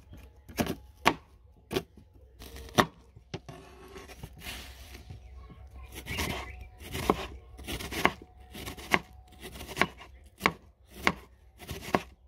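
Knife chopping an onion finely: sharp, separate knife strikes about once a second, with softer scraping sounds in between.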